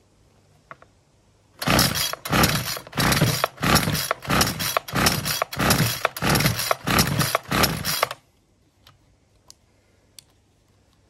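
Ryobi multi-tool's small two-stroke engine being cranked on its pull-start, about a dozen quick strokes at roughly two a second, turning over without catching and stopping suddenly. The owner suspects low compression.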